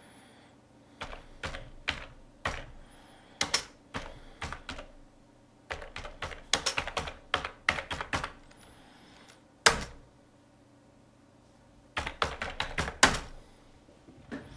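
Typing on a computer keyboard: runs of clicking keystrokes in several bursts with pauses between them, and one lone sharp keystroke about two-thirds of the way through.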